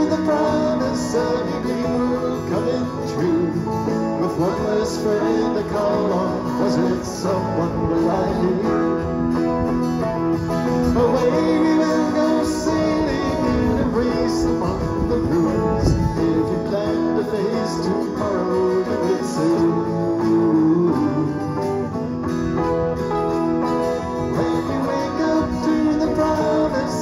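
Electric guitar played through a small amplifier, strummed and picked in an instrumental passage of a song, with no vocals.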